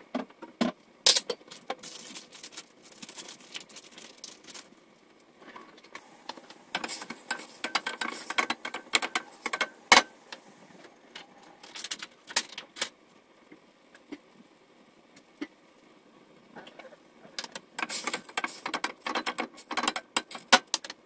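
Wooden spoon stirring chunks of chicken in a stainless steel pot, knocking and scraping against the metal in several bouts of quick clatter.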